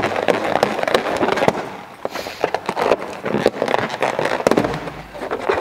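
Latex balloons being handled and tied by hand, rubbing and squeaking against each other in a dense run of sharp crackles and squeaks.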